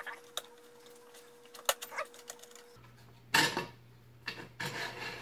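Flatmaster All-Fence aluminium track extrusion being slid by hand along its loosened brackets. A few light metallic clicks come first, then two short scraping rubs about three and a half and five seconds in.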